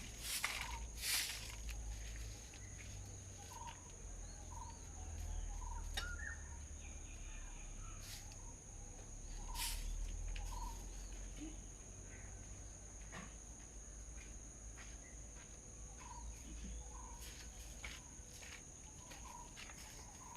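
Outdoor bird-feeding ambience: a steady high-pitched insect drone, short bird chirps repeating every second or so, scattered sharp clicks, and a low rumble underneath.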